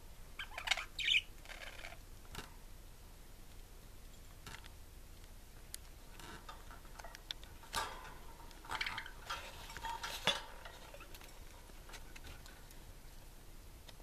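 Pet budgies chattering softly in short bursts of chirps, once about a second in and again several times between about six and ten seconds in. A few light clicks fall between the bursts.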